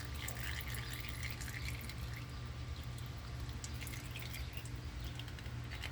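Gear oil dripping from a small fill tube into a truck's differential fill hole: scattered small drips over a steady low hum.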